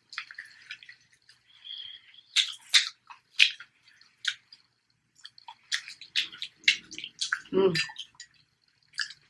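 Close-miked eating sounds: wet chewing, lip smacks and crunching come in short sharp clicks, with a brief low hum from the eater about seven and a half seconds in.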